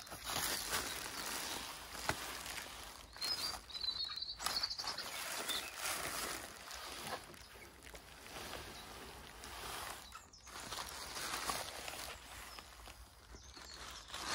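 Rustling and scraping of a young Japanese maple's leafy branches and stems dragging against a cardboard box as the tree is slid out of it, coming in uneven bursts. A bird chirps a few times about four seconds in.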